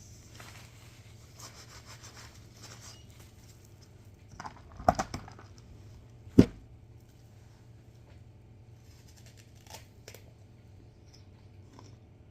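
Snack wrapper being handled and torn open: plastic rustling and tearing, with a crackly burst about five seconds in and a single sharp snap a second and a half later.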